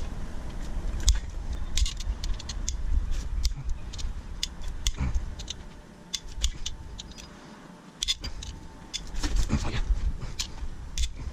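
Irregular metallic clicks and clinks of a 14mm socket and wrench on the main bearing cap bolts as they are broken loose, with a quieter pause about two-thirds of the way through.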